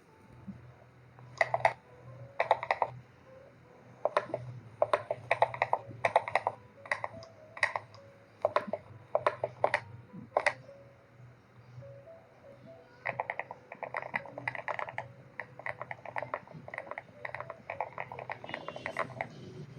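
Rapid clicks in short bursts of several each, growing denser after a pause about two-thirds of the way through, over a steady low hum.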